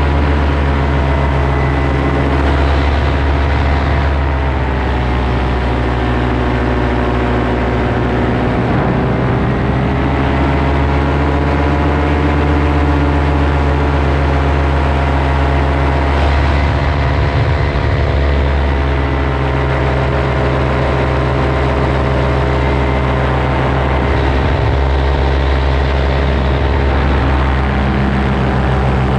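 Paramotor engine and propeller running steadily in flight, its pitch sagging and recovering gently a couple of times.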